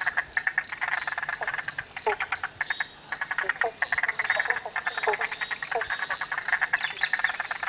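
Frog chorus at a lagoon: many frogs calling in rapid clicking trains that come in bursts, with short falling notes now and then underneath.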